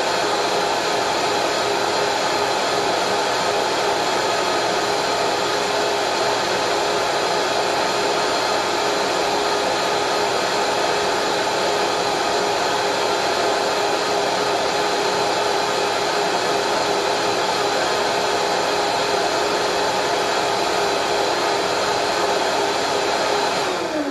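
Countertop blender running steadily, blending cashews and water into a smooth cashew cream. Right at the end it is switched off and the motor's pitch falls as it spins down.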